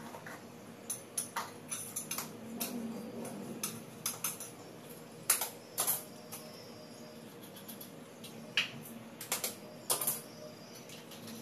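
Irregular clinks and taps of a metal kitchen utensil against metal dishware, a dozen or so sharp strikes, some of them leaving a short ring.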